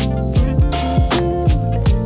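Background music with a steady beat: a funky track with drum hits about every 0.4 s and a bass that slides down in pitch on each note.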